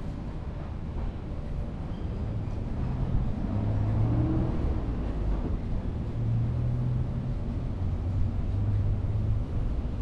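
A motor vehicle's engine running, a low hum that grows louder about two seconds in and holds.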